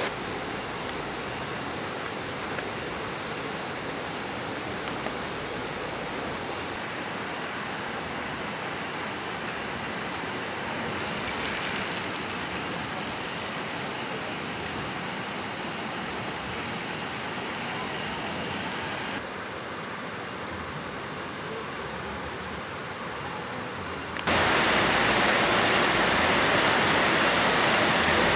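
Waterfall water rushing in a steady roar of falling water. It drops slightly about two-thirds of the way through, then steps up sharply louder near the end.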